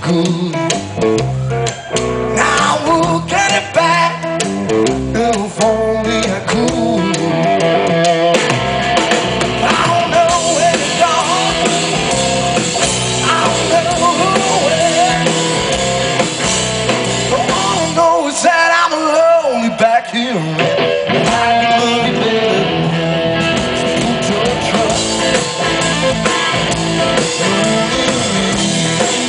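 A blues-rock band playing live, with guitar over a drum kit.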